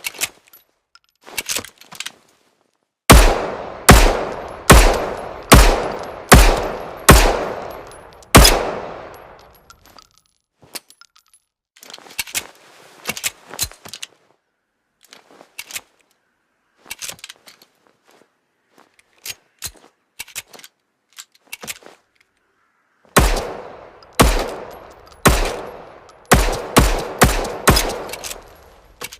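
M1911 .45 pistol firing: seven shots a little under a second apart, each with a ringing tail. Then a long stretch of quiet metallic clicks and clacks, and from about 23 s in, a quicker string of shots.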